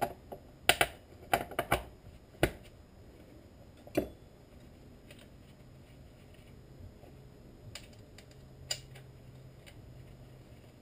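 Sharp clicks and knocks as hands handle a Husqvarna 455 Rancher chainsaw's body and bar during reassembly. There is a quick run of clicks in the first two and a half seconds, then single knocks at about four seconds and again near nine seconds, over a faint low hum.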